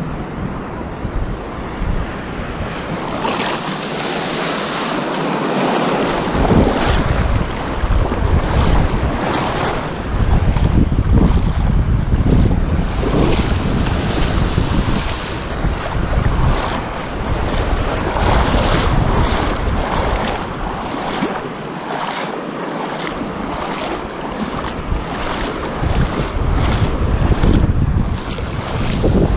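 Shallow ocean surf washing in small waves right at the microphone, in surges that rise and fall, with wind rumbling heavily on the microphone through most of it.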